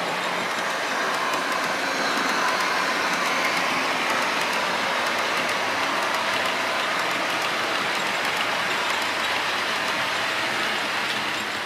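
OO gauge model trains running on the layout track: a steady rolling rumble of wheels on rail with faint rapid clicking.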